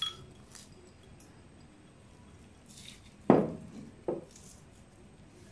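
Quiet handling of kitchen dishes, with one sharp clink of dishware a little over three seconds in and a lighter one just after four seconds, as a small ceramic dish is put down beside a glass mixing bowl.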